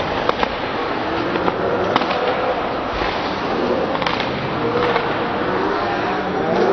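Ice hockey arena sound during play: a steady noisy hiss of skates on the ice and the crowd, with sharp clacks of sticks and puck a few times, and faint voices of spectators and players.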